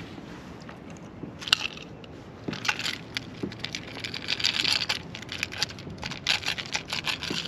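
Stiff, rusty fishing pliers clicking and scraping against the metal hooks of a lure as they work it free from a bluefish's mouth. There is a sharp click about one and a half seconds in, then a dense run of irregular clicks and crackles from about two and a half seconds on.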